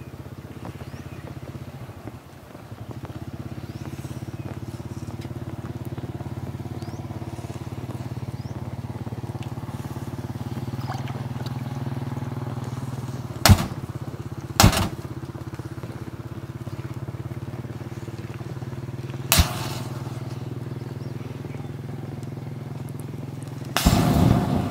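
Plastic butane lighters and matches burning under a foil-wrapped chicken: over a steady low hum, three sharp cracks go off, two close together past the middle and one a few seconds later, as lighters burst in the heat. Near the end a louder, rapid run of crackling and pops comes as the flames flare up.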